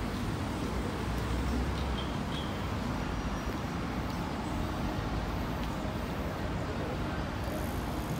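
Steady city street ambience, mainly road traffic noise with a low rumble of vehicle engines.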